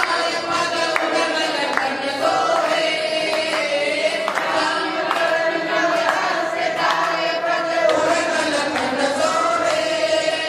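A group of worshippers singing a devotional aarti hymn together, clapping their hands along.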